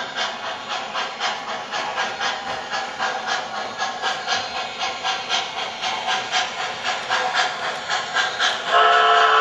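An MTH Premier CNJ Camelback 4-6-0 O-gauge model steam locomotive's onboard sound system giving a steady steam chuff, about three chuffs a second. Near the end the locomotive's steam whistle starts blowing and holds on.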